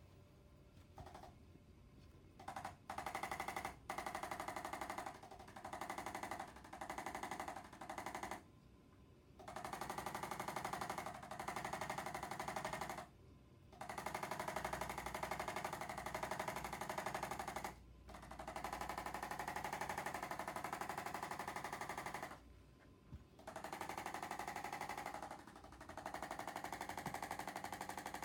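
A handheld electric percussion massager working over the body in on-and-off bursts: a rapid buzzing rattle, about nine bursts of one to four seconds each with short pauses between.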